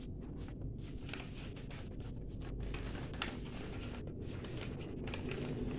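Sheet of A4 paper rustling and crinkling in the hands in short, irregular rustles as it is bent and creased into shape.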